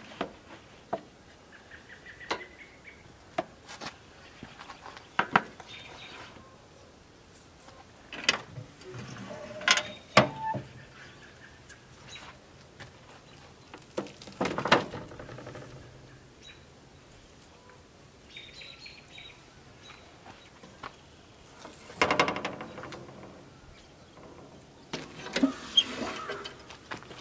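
Scattered metal clanks and knocks from a steel offset barrel smoker as its lid and firebox lid are opened and meat trays are set on the grate, with a split of firewood knocking against the firebox. A small bird chirps faintly a couple of times in the quiet stretches.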